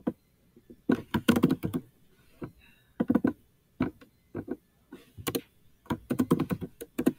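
Computer keyboard being typed on: short runs of quick key clicks in several clusters a second or two apart, as text is deleted and retyped.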